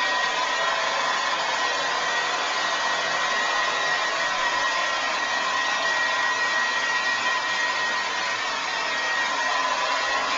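Remington Shine hair dryer running steadily: a constant rush of air with a steady high whine on top.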